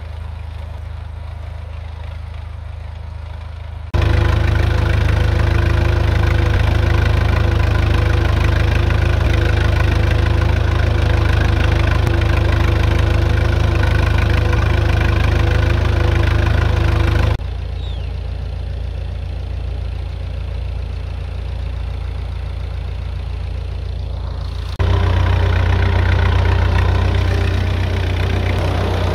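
Farm tractor engine running steadily while pulling a row hipper. The sound jumps abruptly louder about four seconds in, drops back about two-thirds of the way through, and jumps louder again near the end.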